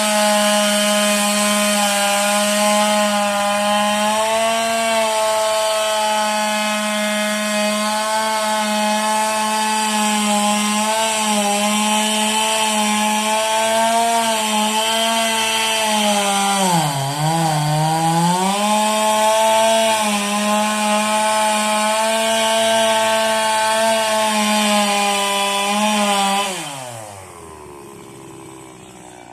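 Stihl two-stroke chainsaw running at high revs, sawing wood. About two-thirds of the way through, its pitch dips briefly under load and recovers. Near the end the throttle is released and the engine winds down.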